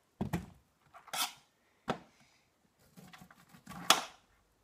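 Kitchen knife cutting kernels off a blanched, cooled ear of corn over a metal baking sheet: about four short crunching knife strokes and taps, the loudest near the end.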